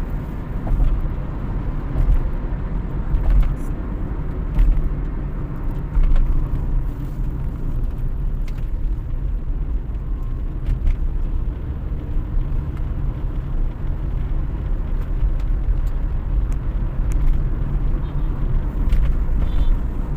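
Steady low rumble of a car driving in city traffic: engine and road noise heard from inside the moving vehicle.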